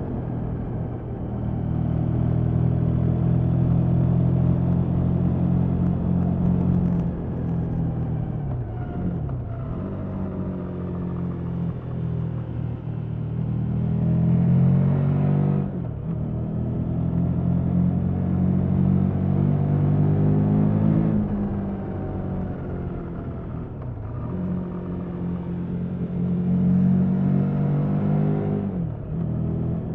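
KTM 1290 Super Adventure S 1301 cc V-twin engine running through its stock exhaust. The note holds steady, climbs, and drops sharply about halfway through and again near the end.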